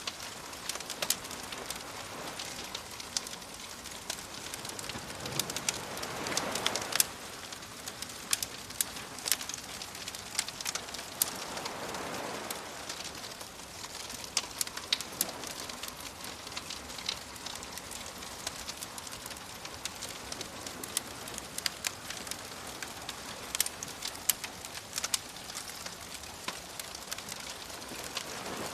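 Wood fire crackling with frequent sharp pops and snaps over a steady wash of gentle waves; a wave swells up about six seconds in and again around twelve seconds.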